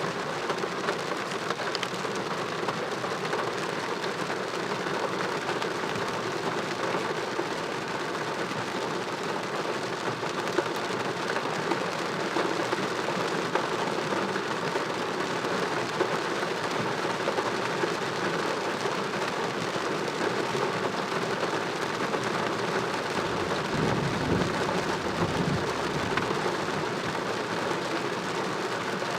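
Heavy thunderstorm rain falling steadily on surfaces, a dense even hiss. A brief low rumble rises and fades near the end.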